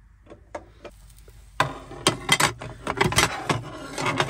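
Ridge Monkey sandwich-toaster pan being handled: a few light clicks, then from about a second and a half in a rapid run of clattering knocks and rattles as the hinged pan is lifted, opened and turned over to tip the toastie out.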